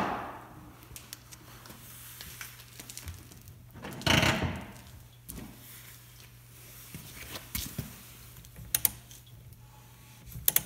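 Garage work sounds under a steady low hum: a short scraping rush about four seconds in, then a few quick sharp clicks near the end as a hand takes hold of the torque wrench on the lug nut.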